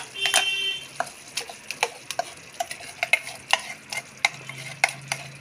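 Metal spoon scraping and knocking against a steel mixer-grinder jar as thick ground masala paste is scooped out into a pressure cooker: a string of sharp, irregular clicks and scrapes, with a brief metallic ring near the start.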